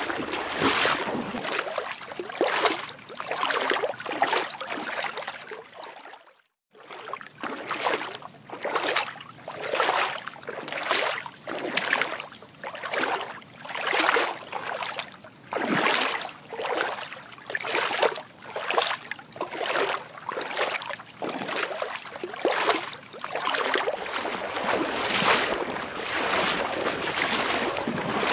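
Water sloshing in regular swells, about one a second, cutting out briefly about six seconds in.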